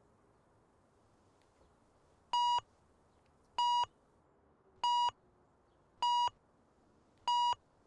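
Digital clock radio alarm going off: five short, evenly spaced electronic beeps, about a second and a quarter apart, starting about two seconds in.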